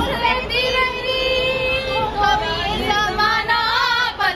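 Women singing together, holding long notes that bend in pitch.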